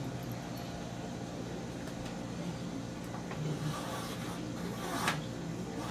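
Light handling noises of tools against the computer case, with a single sharp click about five seconds in, over a steady low room hum.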